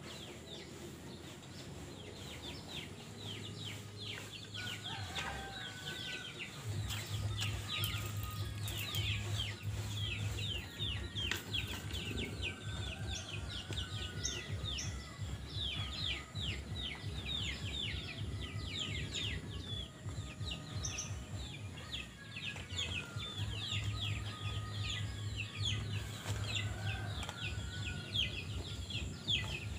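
Rural yard ambience: chickens clucking and many birds chirping in rapid, repeated short downward notes, over a low hum that comes and goes.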